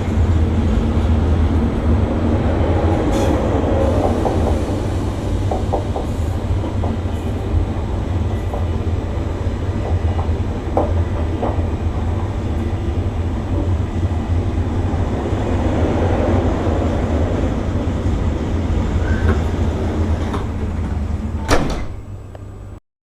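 Train running with a steady low rumble and scattered short clicks. A sharp knock comes near the end, then the sound drops away and stops.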